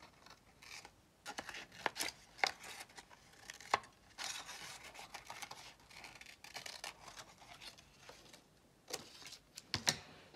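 Small scissors snipping through paper in short, irregular snips, with paper rustling as the sheet is turned between cuts; the snips come mostly in the first few seconds and again near the end.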